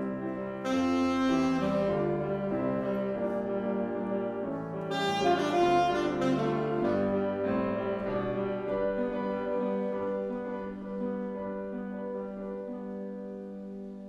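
Saxophone and piano playing together: a saxophone line over piano chords. The music swells to its loudest around five seconds in, then fades away toward the end with notes held and dying out.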